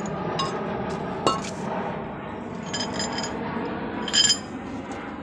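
Metal objects clinking together in an engine workshop: several light, ringing strikes, a few close together about three seconds in and the loudest just after four seconds.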